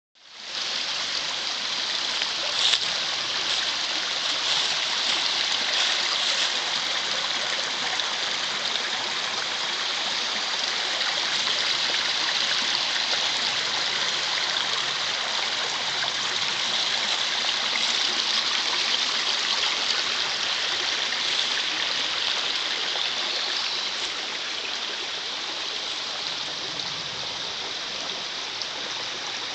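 Small rocky mountain creek flowing over mossy stones: a steady rushing hiss that grows a little fainter near the end.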